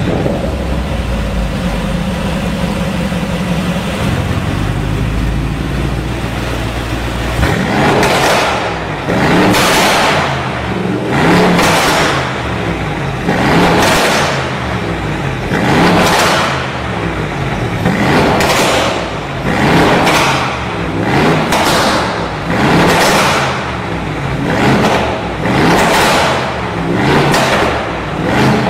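Mercedes-AMG G63's twin-turbo V8 through a catless Fi valvetronic exhaust with the particulate filter deleted. It holds a steady fast idle after a cold start, then from about eight seconds in is revved in short throttle blips roughly every two seconds, about a dozen in all.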